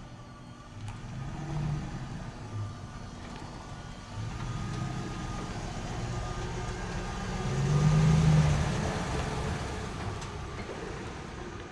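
Radio-controlled construction machine running, a steady engine-like rumble with a thin whine that swells to its loudest about eight seconds in.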